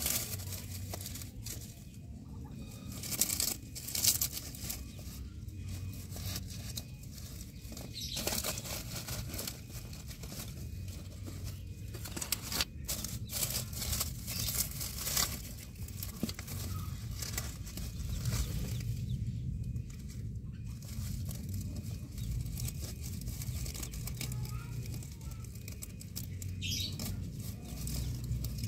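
Dry leaves and sacking lining a nest of eggs rustling and crackling on and off as a hand moves among the eggs, over a low steady hum.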